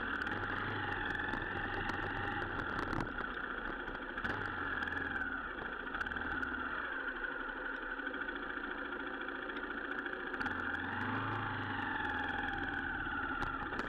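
Honda XR 150L motorcycle's single-cylinder four-stroke engine running as the bike is ridden along a gravel road, its pitch rising and falling gently.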